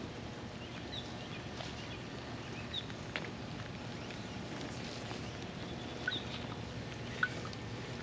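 Steady rain patter over a low, steady hum, with a few short high chirps and light taps scattered through it.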